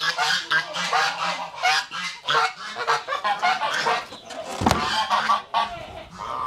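A flock of domestic geese honking loudly, many short calls overlapping one after another. There is a single thump a little past halfway.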